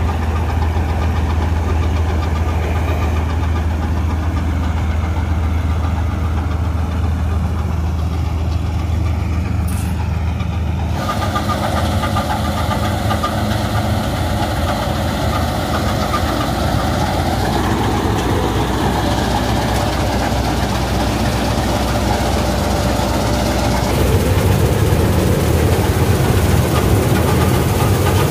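Gill 961 combine harvester running steadily as it cuts wheat: a deep, continuous engine hum with machinery noise over it. The sound changes about 11 seconds in and grows louder near the end, heard from on board the machine.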